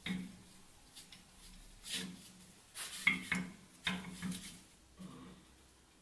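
Light metallic clicks and scrapes of a hex key working a screw in the hub of a brass gear wheel, with small knocks as the metal parts are handled. The clicks come singly at first and bunch together a little past the middle.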